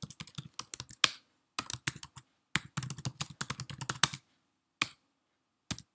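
Typing on a computer keyboard: quick runs of keystrokes with short pauses between them, then a couple of single key taps near the end.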